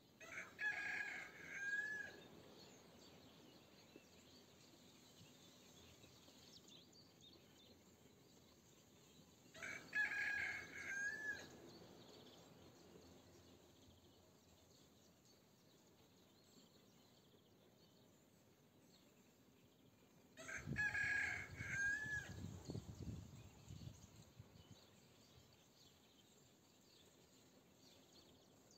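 A rooster crowing three times, about ten seconds apart, each crow about two seconds long and ending on a held note that dips. A low rumble comes in under the third crow.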